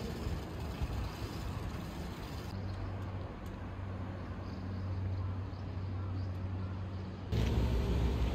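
Outdoor city ambience: a steady low rumble of road traffic. It changes abruptly about two and a half seconds in and again near the end.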